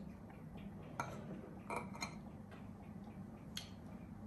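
Metal spoon clinking against a bowl a few times as rice is scooped up: four short, light clinks.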